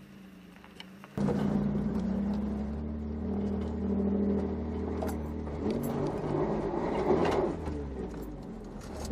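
Pickup truck engine running under load off-road, its pitch wavering and shifting as it works, with scattered knocks and rattles from the truck. A faint idle gives way suddenly about a second in to the much louder engine.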